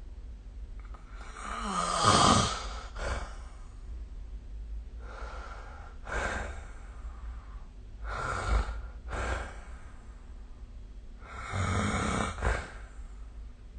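A sleeping person snoring: four rough, noisy breaths about three seconds apart, each lasting a second or two, the loudest about two seconds in.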